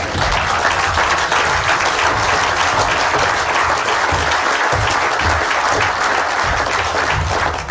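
Audience applauding steadily, dying away right at the end.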